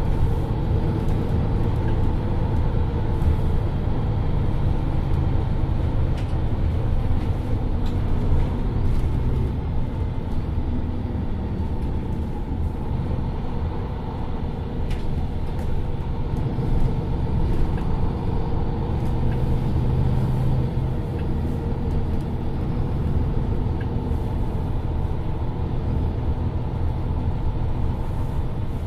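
MAN Lions City Euro 6 city bus's rear-mounted diesel engine idling steadily while the bus stands at the stop.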